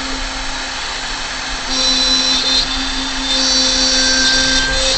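CNC router spindle milling 16 mm MDF in 4 mm deep passes: a steady motor whine with a higher cutting hiss that gets louder twice, about two seconds in and again from about three seconds until near the end, as the bit works through the board.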